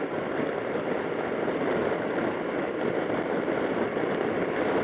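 Steady rush of wind and road noise from a Suzuki Burgman 650 maxi-scooter under way, picked up by a camera mic covered with duct tape. It is an even, unchanging noise with no distinct engine note standing out.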